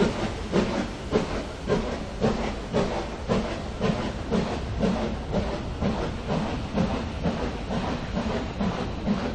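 GWR Castle class four-cylinder steam locomotive 5043 Earl of Mount Edgcumbe pulling away, its exhaust beating in an even chuff-chuff rhythm that quickens as it gathers speed, over the low rumble of its coaches rolling past.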